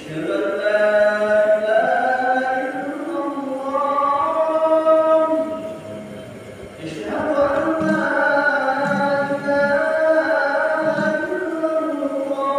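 A man chanting in long, drawn-out melodic phrases, in the manner of the Friday call to prayer, with a pause of about a second near the middle before the next phrase.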